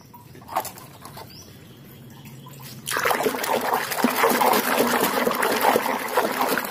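Soapy, muddy water in a plastic basin being sloshed and splashed by a hand scrubbing a toy vehicle. It starts suddenly about three seconds in and goes on as a busy run of splashes.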